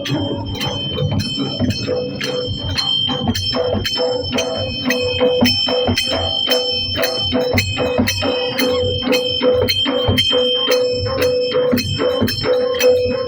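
Adivasi dhol music: a quick, even drumbeat with jingling, bell-like metal percussion and a held ringing tone over it.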